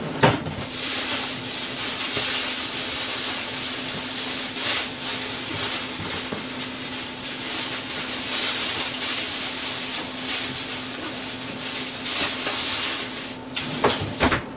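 Kitchen tap running in a steady hissing stream, most likely filling a pot with cold water for simmering daikon. It starts abruptly just after the opening and cuts off near the end.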